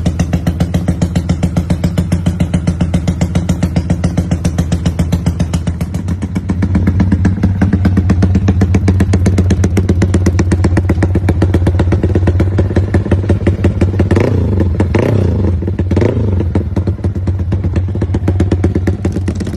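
Yamaha Y15ZR (MX King 150) single-cylinder four-stroke engine idling through an aftermarket exhaust set up for a rumble idle. The idle steps up slightly about six seconds in, and the throttle is blipped twice near the end.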